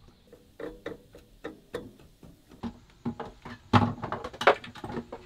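Irregular light clicks and knocks of kitchen utensils and containers being handled on a galley counter, with two louder knocks about four seconds in.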